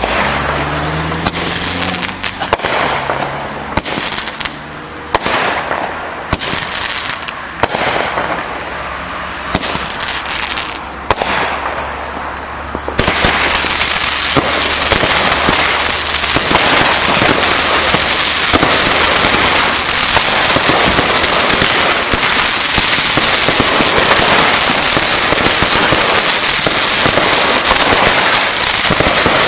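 A 16-shot set of consumer aerial firework shells going off: separate launches and bursts about a second apart, then from about 13 seconds in a dense, continuous crackling that carries on to the end.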